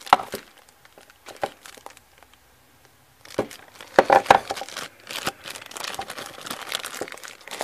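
Clear plastic packaging crinkling as it is handled, in a few scattered crackles at first, then a dense stretch of crinkling from about three seconds in, loudest soon after.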